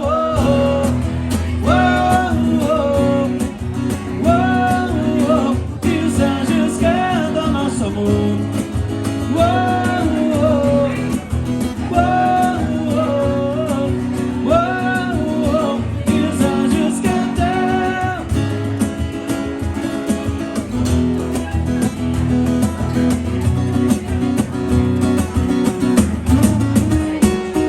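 Live band playing an instrumental break with acoustic guitar, bass and a steady beat. A lead melody repeats a short phrase about every two seconds over it.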